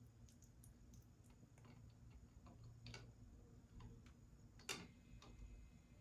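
Congo African grey parrot making faint, scattered beak clicks, about a dozen, with one sharper click near the end.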